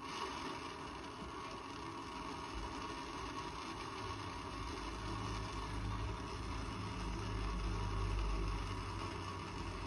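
Hand-held propane torch burning steadily, its flame hissing as it heats a copper pipe fitting for soldering. A low rumble swells in about four seconds in.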